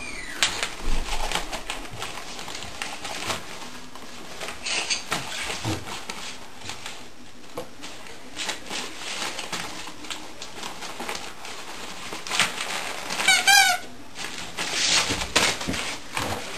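A beagle chewing, shaking and dragging a plush toy on a linoleum floor: irregular rustling, scraping and clicking. About thirteen seconds in there is one short warbling squeak.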